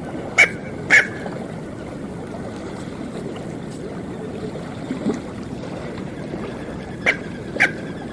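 Smew giving short, sharp calls: two in quick succession near the start and two more near the end, over a steady background hiss.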